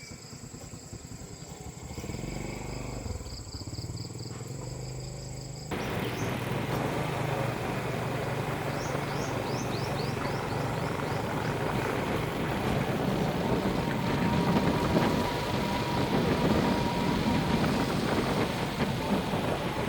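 Small engine running steadily, with a high insect-like buzz at first. About six seconds in it abruptly becomes much louder and denser and stays at that level.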